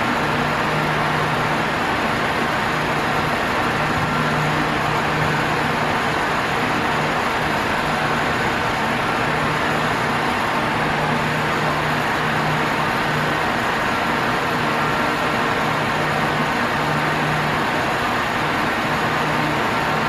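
Arno Ultra Silence Force VD40 40 cm fan running at top speed: a steady rush of air with a low motor hum that comes and goes.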